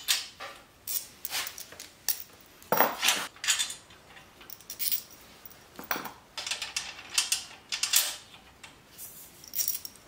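Steel mounting rails and bolts of a DeWalt DWX726 miter saw stand clinking and rattling as they are handled and slid, in irregular short clanks. The rail bolts are loosened, so the rails move loosely.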